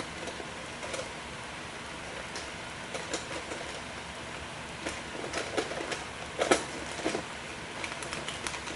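Irregular light clicks and taps over a steady hiss, with a louder knock a little past the middle.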